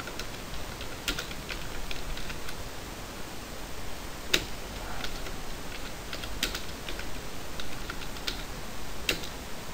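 Typing on a computer keyboard: irregular key clicks, a few sharper than the rest, over a faint steady hiss.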